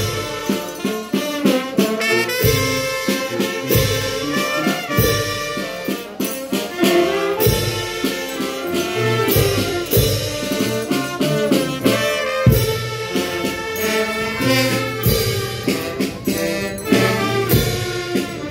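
Brass band music: horns playing a lively tune together over a regular heavy beat.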